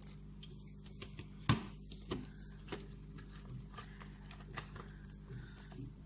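A few light clicks and taps of small plastic toy pieces being handled, the sharpest about a second and a half in, over a steady low electrical hum.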